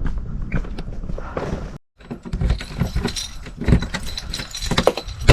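A run of small clicks, knocks and jangles from things being handled. The sound cuts to silence briefly just before two seconds in, and there is a sharp knock near the end.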